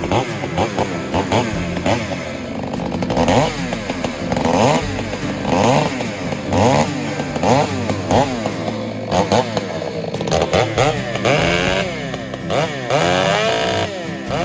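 Two-stroke chainsaw running under load, its engine pitch dropping and climbing again about once a second as it bogs down in the cut and picks up speed.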